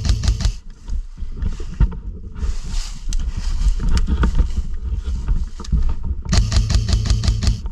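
Airsoft electric rifle firing full-auto bursts, a rapid even rattle of shots over the gearbox motor's hum: one burst ends about half a second in, another starts about six seconds in. Between the bursts, rustling and handling noise.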